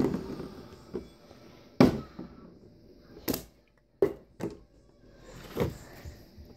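Plastic water bottle flipped onto a wooden table, hitting, bouncing and knocking against the wood: a string of about seven sharp knocks and thuds, the loudest at the start and another about two seconds in.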